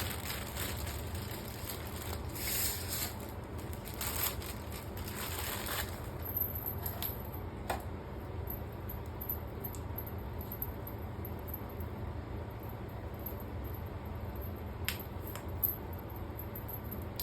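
Rustling and handling noise from unboxing a keyboard for the first several seconds, with a few louder swishes. After that come a few single small clicks, over a steady low hum.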